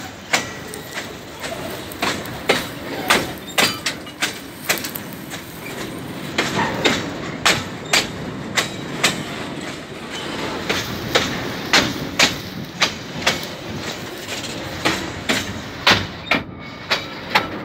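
Steel wheels of passing freight wagons clacking over a rail joint: groups of sharp clacks about twice a second, with short gaps between groups, over a steady rumble of wheels on rail.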